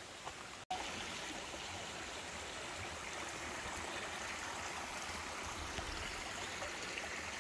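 Small, shallow stream flowing over rocks: a steady rush of water that comes in suddenly just under a second in.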